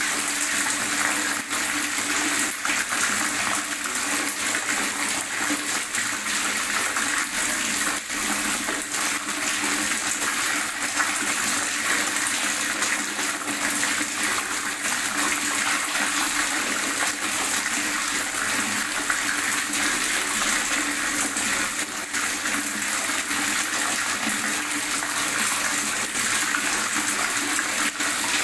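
Water gurgling steadily: a continuous, even rush of flowing water with many small splashes and bubbles.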